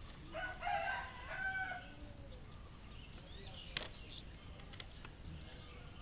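A rooster crowing in the background, one crow of about a second and a half near the start. A few short high chirps from a small bird follow later, with a single sharp click between them.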